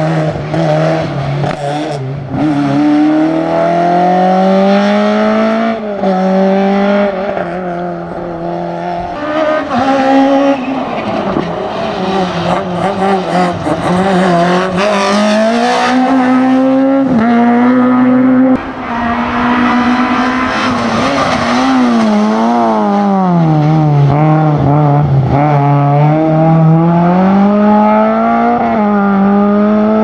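Slalom rally cars' engines revving hard, the pitch repeatedly climbing under acceleration and falling away as the cars brake and change gear between the cones. There is a sudden brief drop in level about eighteen seconds in.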